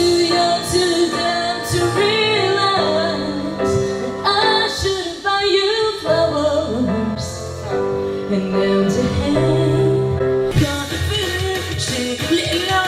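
A woman singing a pop song karaoke-style into a microphone over a backing track, holding long notes.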